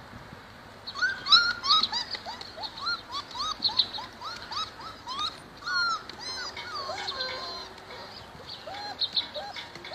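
Several young puppies whining and squealing together in a rapid string of short, high, rising-and-falling cries.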